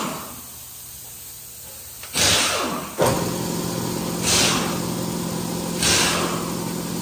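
Short bursts of hissing air, three of them a couple of seconds apart, typical of a compressed-air line or air tool in a tire shop. About three seconds in, a machine starts with a sudden onset and then runs with a steady hum.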